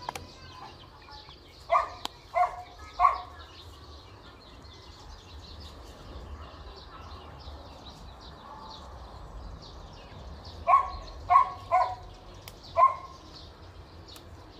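A dog barking in two short bouts: three barks about two seconds in, then four more around eleven seconds in.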